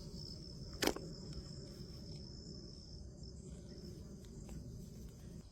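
Steady high-pitched insect trill that fades out about three seconds in, over a low outdoor background rumble. One sharp click sounds just under a second in.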